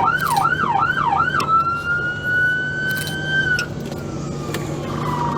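Police car siren in yelp mode, sweeping rapidly up and down about four times, then switching to a slow wail that rises and then falls.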